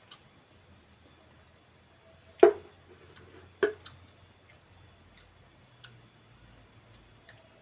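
Two sharp knocks of tableware about a second apart, with faint small ticks scattered around them, as food is eaten.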